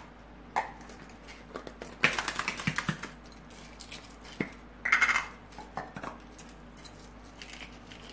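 Hard-boiled eggshells cracking and crackling as they are peeled, mixed with rattling from a handheld egg-peeler cup being shaken with an egg and water inside. Two bursts of rapid clicking stand out, about two seconds in and again about five seconds in.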